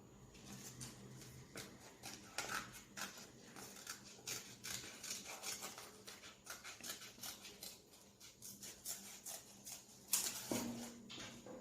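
Scissors snipping paper: a faint, irregular run of small clicks as a folded paper shape is cut out, with a brief louder sound near the end.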